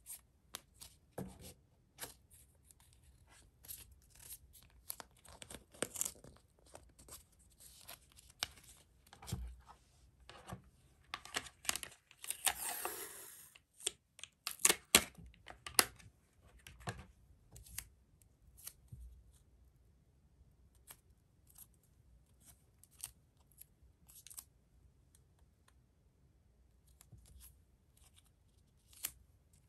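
White tape being pulled off its roll with one long tearing pull about halfway through, then torn off and pressed onto cardboard sheets. Around it, scattered light clicks, taps and rustles of hands handling the tape and cardboard.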